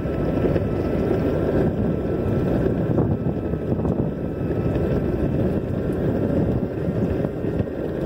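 Wind buffeting a phone microphone while riding an electric longboard, over a steady low rumble of the wheels rolling on asphalt.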